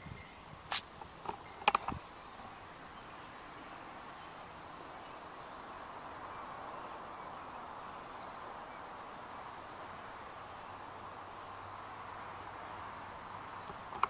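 Outdoor ambience of a faint, regularly repeating high insect chirp over a steady hiss, with a couple of sharp clicks in the first two seconds.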